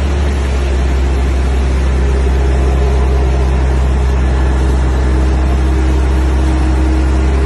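Wheel loader's diesel engine running steadily with a deep low drone, heard from on board the machine as it moves through floodwater.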